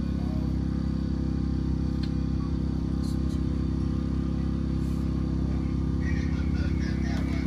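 A steady low mechanical hum, level throughout.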